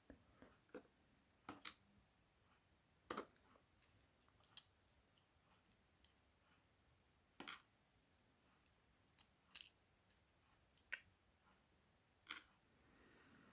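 Faint, sparse metallic clicks as tiny key pins from an Assa 6000 lock core are handled and dropped one at a time into a container. There are about a dozen sharp ticks at irregular intervals, with near silence between them.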